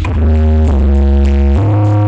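Electronic music played loud through a large sound system with subwoofers, its heavy bass line holding deep notes that slide from one pitch to the next about once a second.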